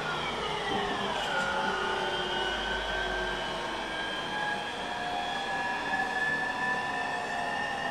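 E231 series electric train's VVVF inverter and traction motors whining under way: the tones slide down in pitch over the first second and a half, then climb slowly as the train gathers speed, over steady wheel and running noise. The falling whine is the inverter sound that gives this unrenewed E231 its nickname, the "falling inverter".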